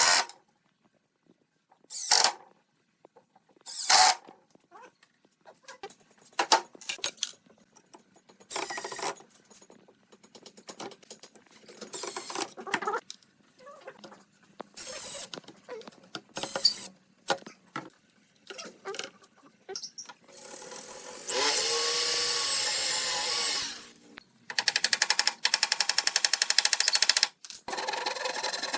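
Woodworking tools at work: a series of short, sharp bursts, then a power tool runs steadily for a couple of seconds about two thirds of the way in, followed by a fast, evenly pulsing power-tool sound near the end.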